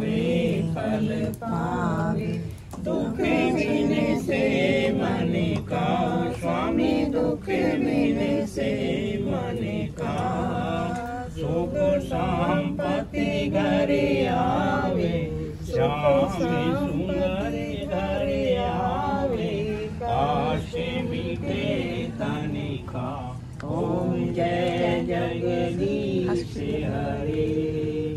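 Several voices chanting Hindu devotional mantras together in a steady melodic chant, as recited at a hawan fire ritual.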